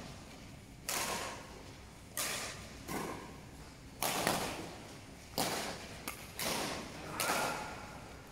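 Badminton rally: racket strings smacking a shuttlecock back and forth, a sharp hit about every second, each echoing in a large sports hall.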